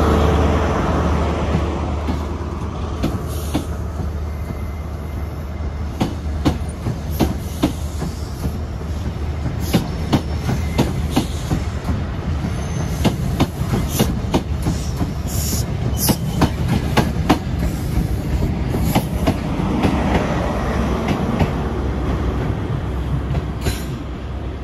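A ScotRail HST formed of Class 43 power cars and Mark 3 coaches rolls past over rail joints and pointwork, its wheels clicking irregularly over a low rumble. At the start the power car's diesel engine fades away.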